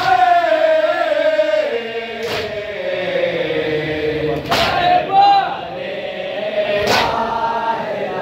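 A crowd of men chanting a Shia nauha lament together, a long held line that falls slowly in pitch. Three loud unison strikes of hands on chests (matam) land about two seconds apart.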